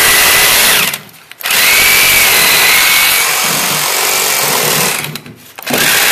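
Electric drill with a long masonry bit boring into a concrete wall footing. It runs, stops briefly about a second in, starts again with a whine that rises in pitch as it spins up, runs until about five seconds in, then gives one short last burst near the end.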